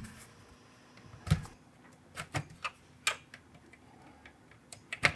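Irregular sharp clicks and taps of plastic as the car radio's faceplate clips are pried loose and the faceplate is worked off.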